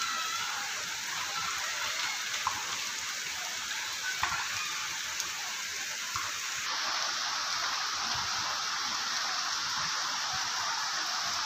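Heavy downpour: a steady hiss of torrential rain falling on leaves and a flooded paved surface, with a few faint knocks. About two-thirds of the way through the hiss turns brighter.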